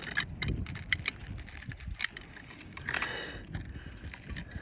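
Irregular crunching and clicking of ice and snow, a quick run of sharp crackles with a short louder scrape about three seconds in.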